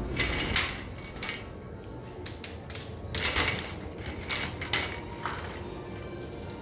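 Rustling and light clattering of small objects being handled, in irregular bursts, over faint background music.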